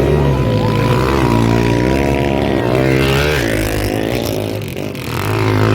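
Motocross bike engines revving, their pitch rising and falling over and over as the throttle is worked.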